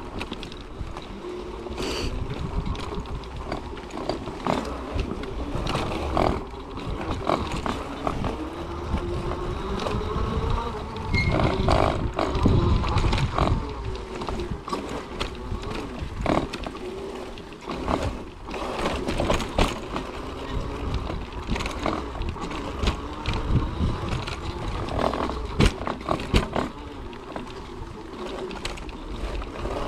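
Electric front power attachment on an off-road wheelchair driving over rough forest trail: a motor whine whose pitch rises and falls with speed, under a rumble of fat tyres and frequent knocks and rattles as the chair jolts over roots and bumps.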